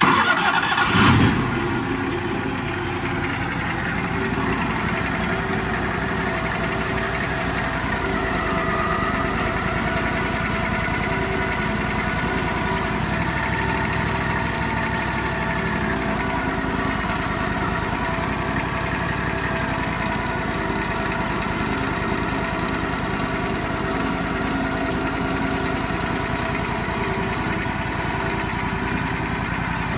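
An engine running steadily at a fairly constant speed. It comes in abruptly, louder for about the first second, then holds an even level.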